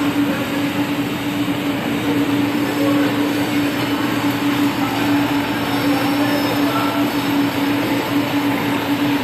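Automatic packing machine for disposable plastic cutlery running, a steady mechanical drone with one constant tone under continuous machine noise.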